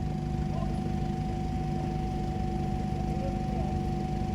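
A 4WD's engine running at steady revs: an even hum that holds its pitch over a low rumble.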